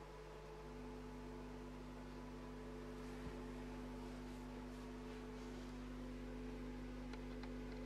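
JL Audio 10W7 subwoofer playing a steady 50 Hz test tone from a JL 500/1 amplifier: a low, even hum with a buzzy overtone that joins about a second in.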